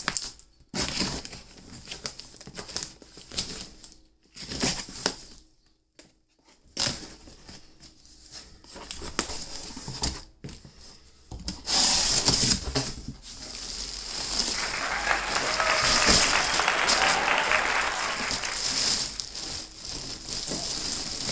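A shipping box being unpacked: packaging torn open and plastic wrapping crinkling and rustling. Scattered rustles at first, then continuous, louder handling from about halfway through.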